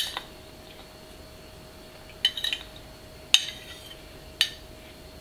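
Metal spoon clinking against a ceramic bowl while stirring boiled corn kernels with masala and lime juice. There are a few scattered clinks: one at the start, a short cluster about two seconds in, then two single sharp ones about a second apart.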